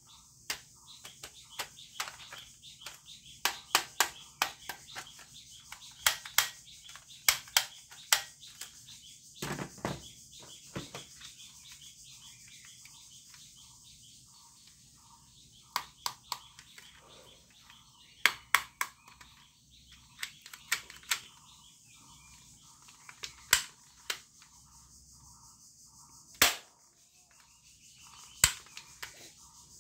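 Plastic toy guns being handled: irregular sharp clicks and clacks of the plastic parts, with one heavier knock about ten seconds in. Faint bird chirps sound in the background.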